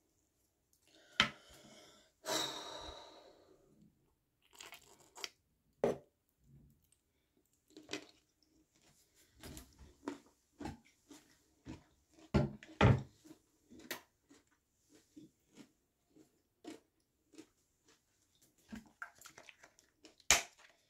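Close handling noises of small makeup items and a plastic bottle: scattered clicks, taps and rustles, with a longer scraping rustle about two seconds in and a cluster of louder knocks around the middle.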